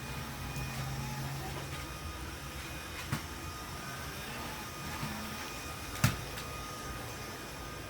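A vacuum cleaner runs with a steady motor hum. There is a sharp knock about three seconds in and a louder one about six seconds in.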